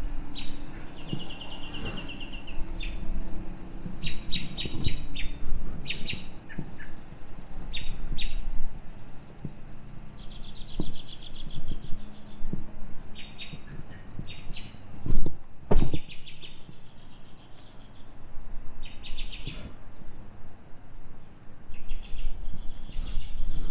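Songbirds chirping, with short calls and quick trills repeating, over a low steady hum. About two-thirds of the way in come two loud thumps.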